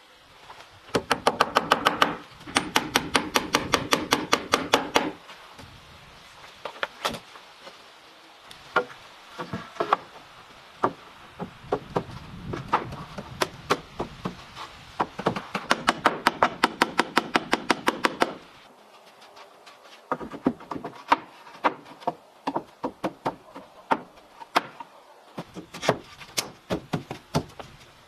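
Rapid knocking of a tool on wood, several strikes a second, in two runs of a few seconds each. Scattered single knocks fall between the runs.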